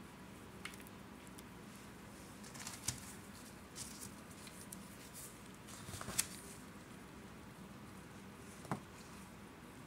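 Lumps of cornstarch crunching and crumbling: a handful of short, separate crunches, the loudest about six seconds in, over a faint steady hum.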